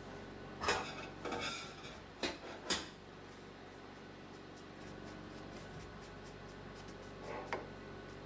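A few short clinks and scrapes of small metal pieces and tools being handled at a jeweller's bench, over a steady low hum.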